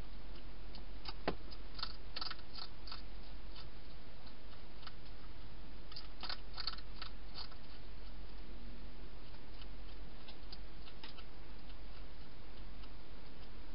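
Wild hedgehog crunching dry food: two bursts of crisp clicky chewing, about a second in and again about six seconds in, with a few single crunches later, over a steady low hum.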